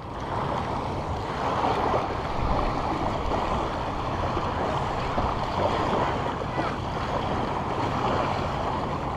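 Small waves washing onto a sandy shore, with wind on the microphone: a steady rushing noise.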